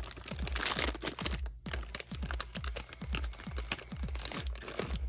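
Foil wrapper of a Bowman Draft trading-card pack crinkling and crackling, with a brief pause about a second and a half in, as it is handled and torn open. Underneath runs background electronic music with a steady beat.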